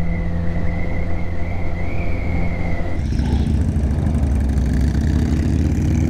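Motorcycle engine running at riding speed, heard from the rider's own bike, with a strong low rumble. About three seconds in the engine note changes and then climbs gradually.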